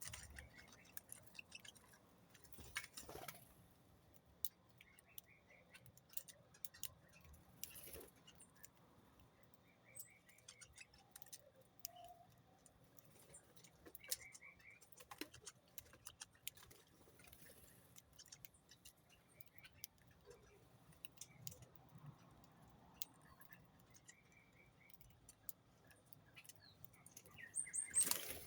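Small birds heard faintly: short, quick chirps now and then over many scattered sharp clicks and taps, with a louder flurry of clicks near the end.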